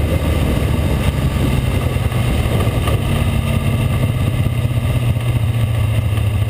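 A 360 sprint car's V8 engine running at a steady, unbroken pitch, heard from a camera mounted on the moving car.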